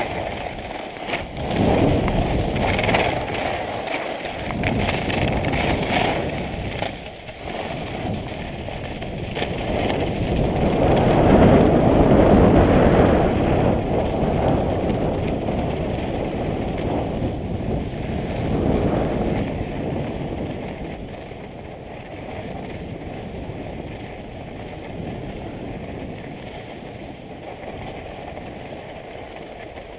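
Wind rushing over a body-worn action camera's microphone as the skier speeds down the slope, mixed with the skis sliding over the snow. It swells loudest about 11 to 14 seconds in and drops lower after about 20 seconds.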